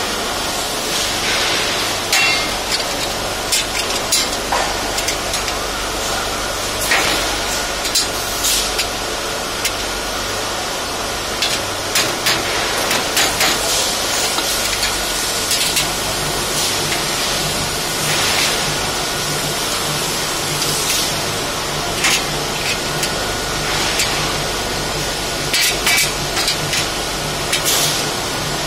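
Slotted steel shelving uprights and beams knocking and clinking as they are fitted together, with taps from a rubber mallet, irregular and spaced a second or several apart. A steady hiss runs underneath.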